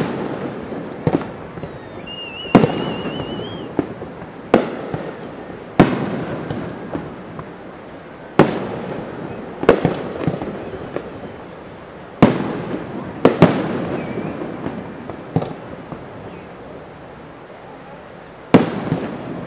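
Aerial firework shells bursting one after another: about a dozen sharp booms spaced one to three seconds apart, each followed by a rolling echo.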